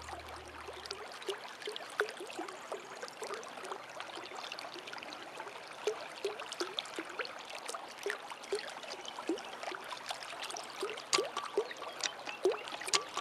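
Water trickling and gurgling, with many small drips and plinks.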